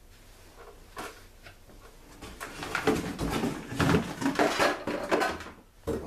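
Metal engine parts of a Stihl backpack blower being handled on a workbench: scattered knocks, then a dense run of clinks, rattles and knocks through the middle seconds, ending with one sharp knock.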